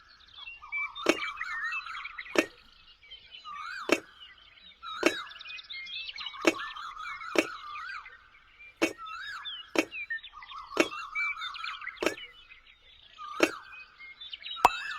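Chirping calls that swoop up and down in pitch, with a sharp click about once a second, about a dozen clicks in all.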